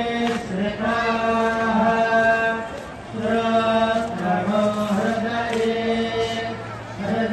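Hindu devotional chanting: a single voice intoning in long held notes, its phrases breaking about every three seconds.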